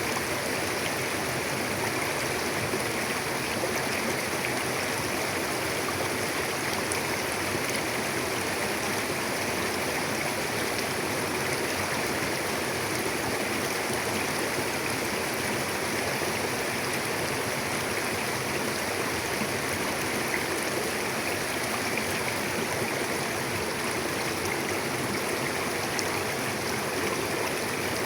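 Mountain river flowing over rocks: a steady, even rush of water with no change throughout.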